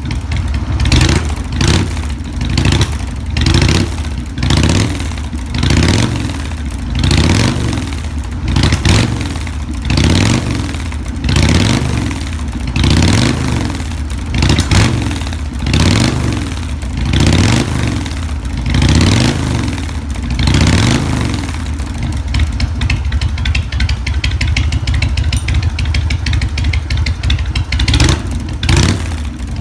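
Harley-Davidson Sportster V-twin running through drag pipes fitted with an inner silencer (exhaust baffle), revved in short throttle blips about once a second. About two-thirds of the way in it settles to a steady idle, then is blipped twice more near the end.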